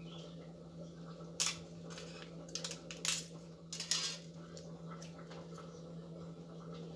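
Scissors snipping thin aluminium cut from a drink can, with light metallic clicks from handling the piece: a few sharp clicks in the first four seconds or so, then only a steady low hum.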